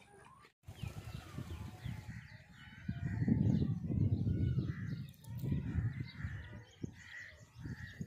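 Birds calling several times, with crow-like caws, over a gusty low rumble of wind buffeting the microphone. The rumble is loudest a few seconds in.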